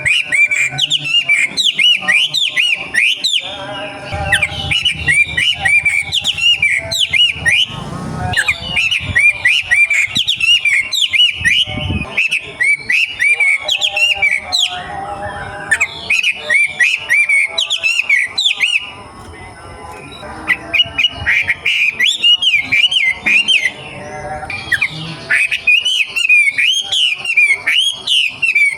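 A young wild-caught wambi songbird singing long runs of rapid, sharp chirps and sweeping notes, with only brief pauses between the runs.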